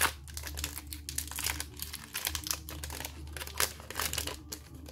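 Foil wrapper of a Yu-Gi-Oh! Rarity Collection booster pack being crinkled and torn open by hand: a run of irregular crackles and rustles.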